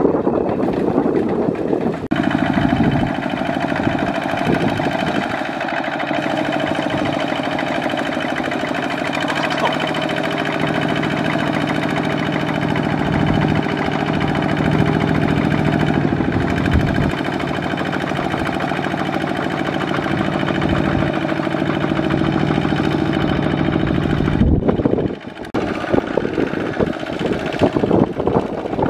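Kubota ZT155 single-cylinder diesel of a two-wheel walking tractor running steadily while it pulls a loaded trailer through mud, with an abrupt change in the sound about two seconds in and a short dip near the end.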